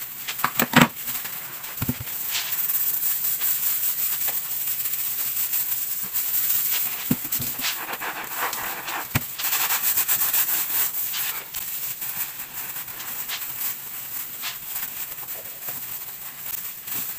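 Household handling sounds: a few sharp knocks, the loudest about a second in, over a steady rubbing or rustling noise.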